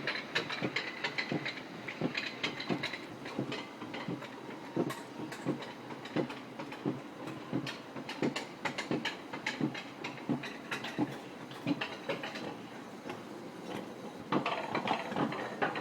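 Roller coaster car running along its track, rattling and clacking with irregular knocks several times a second, growing louder near the end.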